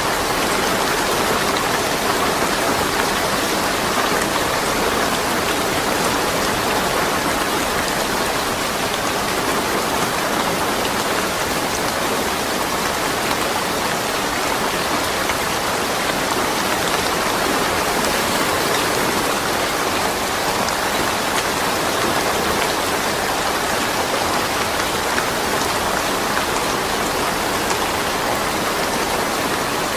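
Steady rain falling, an even, unbroken patter of drops with no thunder.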